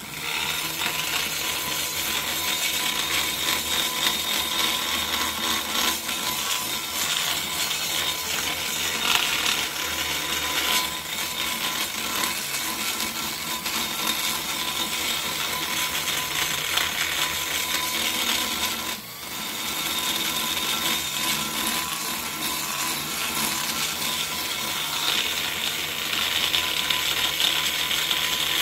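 Small DeWalt electric die grinder running at a steady high speed with a flame-shaped carbide burr, grinding metal from the short side radius of a cylinder head's port. It makes a steady high whine with a grinding hiss, and dips briefly about two-thirds of the way through.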